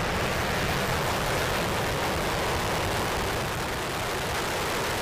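Falcon 9 rocket's nine Merlin 1D engines firing at liftoff: a steady roar.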